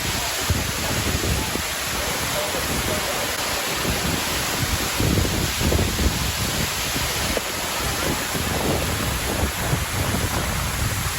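Steady rushing of a tall waterfall cascading down rock, with gusts of wind buffeting the microphone.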